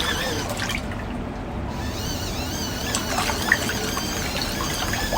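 Water sloshing and trickling in a mini portable washing machine running a rinse with softener.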